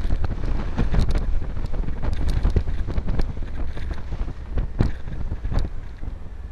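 Wind buffeting the microphone over the running engine of an open-top beach buggy on the move, with scattered short knocks.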